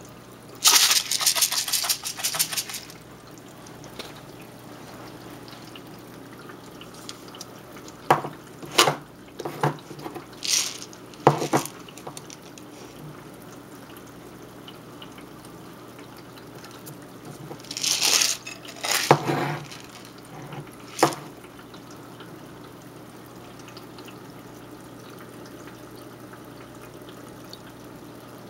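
Water splashing and dripping at the surface of a freshwater aquarium during hand-feeding of tinfoil barbs. There are three clusters of sharp splashes: near the start, about a third of the way in, and about two-thirds of the way in, with quieter stretches between them.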